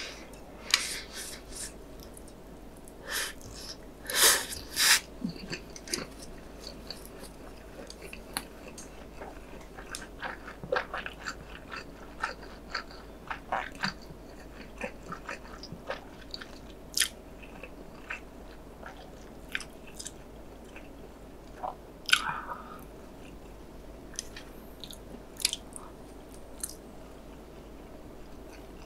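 Close-miked mouth sounds of a person eating Buldak spicy stir-fried instant noodles: chewing with scattered wet clicks and smacks. The loudest bursts come around four to five seconds in and again around 22 seconds.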